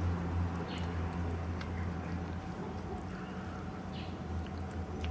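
A stray cat eating wet cat food from a plastic tub, with a few soft chewing clicks, over a steady low hum.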